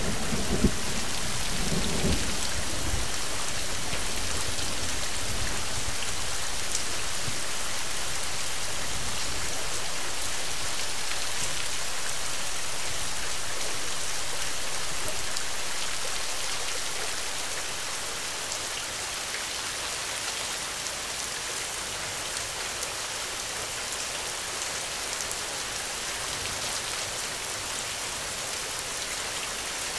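Thunderstorm: steady, heavy rain falling, with a low rumble of thunder dying away in the first few seconds. The rain grows somewhat quieter a little past halfway.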